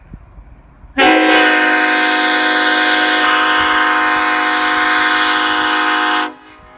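Nathan Airchime K5 five-chime locomotive air horn blown in one long, steady blast, a deep chord of several held notes starting about a second in and cutting off sharply about five seconds later.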